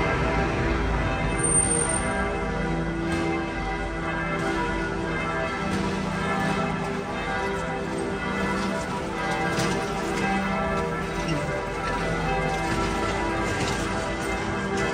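Church bells ringing a continuous peal: several bells sounding over and over, their long tones overlapping.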